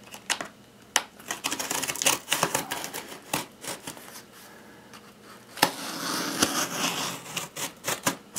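Spyderco Tenacious folding knife cutting and scraping through the packing tape on a cardboard shipping box: a run of sharp clicks and scratches, with a longer rasping stretch about six seconds in.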